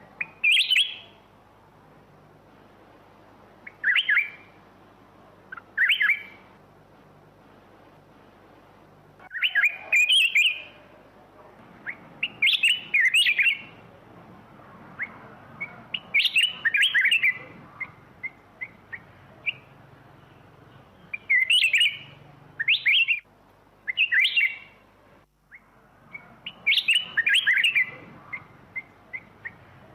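Black-crested bulbul singing: short, bright, warbled phrases repeated every second or two, with single short notes in between.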